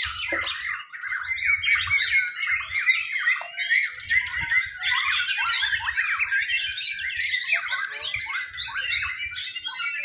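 Several caged white-rumped shamas (murai batu) singing at once, their fast, varied high whistled phrases overlapping without a break.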